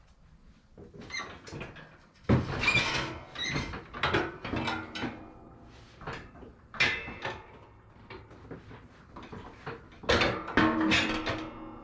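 Metal clanking, scraping and squeaking from the ATV snow plow's mounting hardware as it is handled and fitted, in a string of irregular knocks, a few leaving a brief ringing tone.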